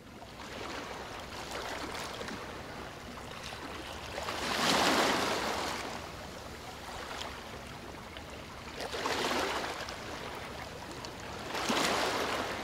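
Rushing, watery noise like surf or an underwater ambience, swelling and easing back three times: about 5 seconds in, about 9 seconds in and near the end.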